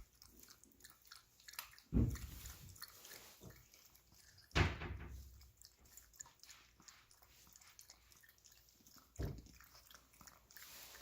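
Chihuahua puppy chewing and crunching dry puppy kibble, in small crackles, with three louder knocks about two, four and a half and nine seconds in.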